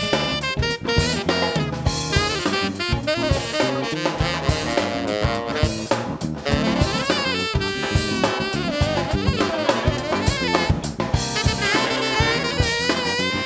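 Live funk band playing: saxophone horn section over drum kit, bass and piano, with many sharp drum hits driving the groove.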